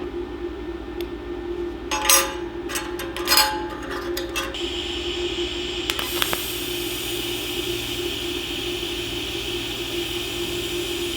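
DC lift-TIG arc from an inverter welder: a few irregular crackles and clicks about two to four seconds in as the arc is struck, then a steady hiss from the running arc. A steady hum sits underneath throughout.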